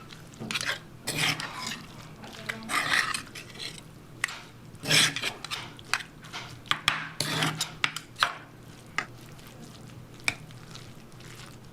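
Utensils stirring and scraping in a dish, with irregular swishes and sharp clinks, over a steady low hum.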